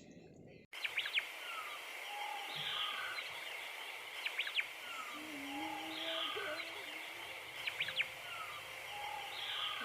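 Birds calling and chirping over a steady high hiss, with short calls and quick sweeping chirps repeating every couple of seconds. The sound cuts in abruptly just under a second in.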